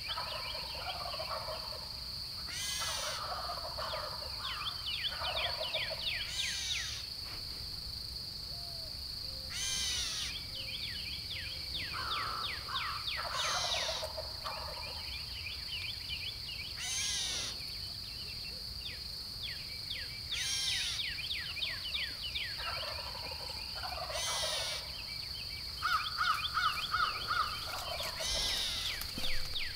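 Several Osceola wild turkey gobblers gobbling again and again, a gobble every few seconds, often one on top of another. A steady high-pitched buzz runs underneath.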